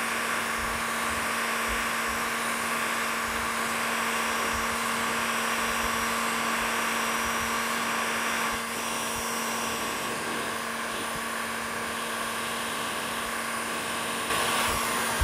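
Corded electric heat gun running steadily: a fan-driven blow of hot air with a steady low hum, a little louder near the end. It is heating a chainsaw crankcase to loosen the crank bearing for removal.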